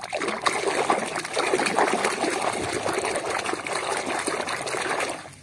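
Water sloshing and splashing in a basin as a hand scrubs a muddy toy under the surface, stopping about five seconds in.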